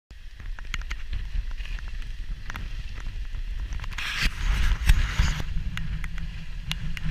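Wind buffeting the microphone as a low rumble, with scattered sharp clicks and rattles, and a louder rush of hiss from about four seconds in that fades a second and a half later.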